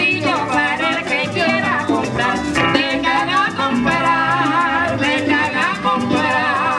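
Live Cuban son band playing: guitar, upright bass and hand drum with a shaken rattle keeping the rhythm, and a voice singing over it.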